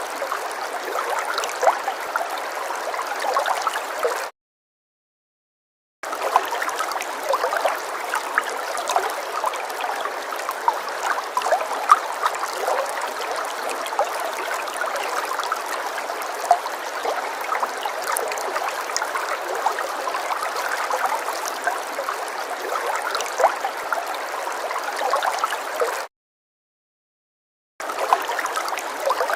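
Falling water splashing and gurgling steadily, with many small splashes and no deep rumble. The sound cuts out abruptly to dead silence twice, for under two seconds each time: about four seconds in and near the end.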